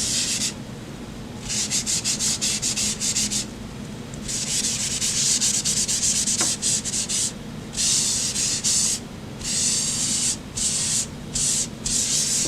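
Tissue paper rubbing graphite into drawing paper in quick back-and-forth strokes, blending the shading into an even tone. A soft hiss in runs of rapid strokes, broken by several short pauses.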